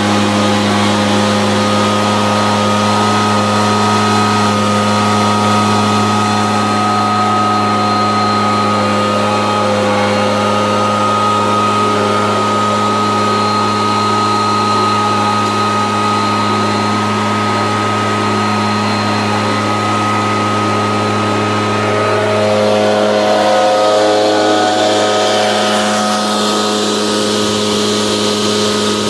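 Echo PB770H backpack leaf blower's two-stroke engine running steadily, with the blower fan rushing, after a hot restart. The pitch shifts slightly a little past twenty seconds in.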